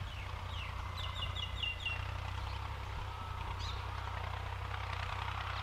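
Low, steady hum of a CHAMP YTO 454 tractor's diesel engine, heard from a distance while it pushes soil with its front blade. A bird chirps over it, with a quick run of about five chirps a second or so in.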